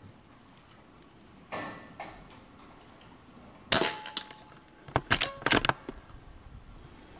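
A Benjamin Marauder .22 PCP air rifle fires once, a sharp crack with a brief ring, the loudest sound here. About a second later comes a quick run of several sharp metallic clicks. Earlier, about a second and a half in, there is a softer scrape and click.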